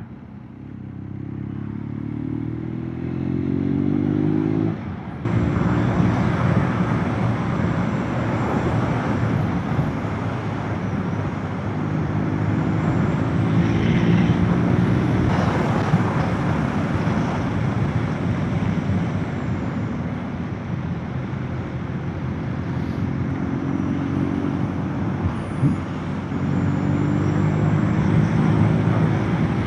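Motorcycle engine pulling up through the revs, with a brief dip in sound about five seconds in, as at a gear change. It then runs on under steady wind and road noise, the engine note rising and falling.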